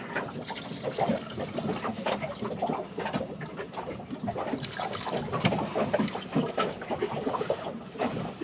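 Small waves lapping and slapping against the hull of a boat at sea, an irregular run of splashes and knocks.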